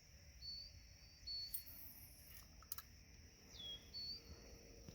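Faint outdoor evening ambience: a steady high-pitched insect chorus, with short whistled bird notes every second or so and a couple of sharp clicks midway.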